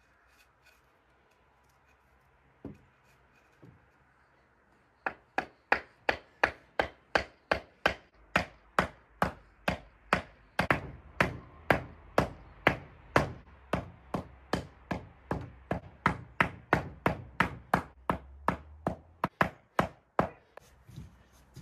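A hammer striking the wooden boards of a raised garden bed: one lone knock, then from about five seconds in a steady run of blows, roughly two to three a second, stopping shortly before the end.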